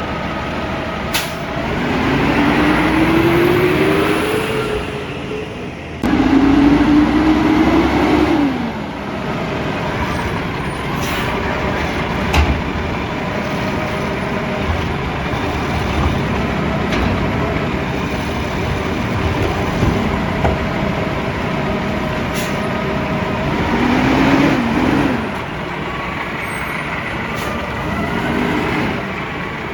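Peterbilt 320 garbage truck with a McNeilus ZR automated side-loader body, its engine running and rising in pitch three times as it revs, once about two seconds in, again about six seconds in, and near the end. A few short sharp air releases come in between.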